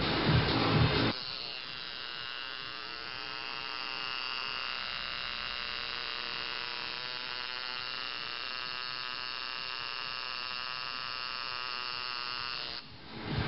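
Coil tattoo machine running on skin, a steady high electric buzz that cuts out just before the end. A louder, rougher noise fills the first second.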